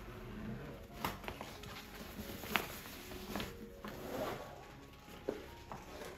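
Handling of a fabric carry bag: cloth rustling as an item is lifted out of it, with a few light clicks and knocks.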